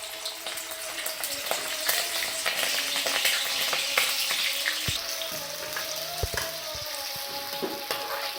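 Small pieces of chicken liver sizzling as they fry in hot cooking oil, with scattered clicks and scrapes throughout.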